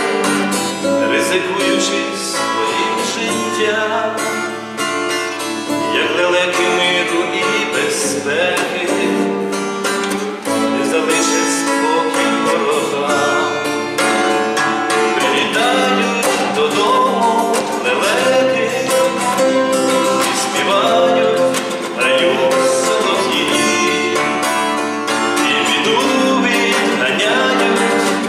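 Music played on a round-backed, lute-type plucked string instrument, with picked melody and chords going on without a break.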